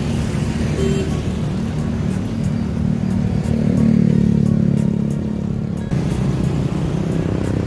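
Road traffic, cars and motorcycles, driving past close by under background music; one vehicle passes loudest about four seconds in.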